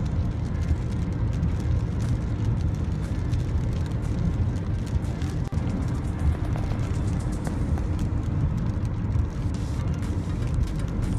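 Steady road noise inside a moving car at highway speed: a low, even rumble of tyres and engine, with faint scattered ticks through it.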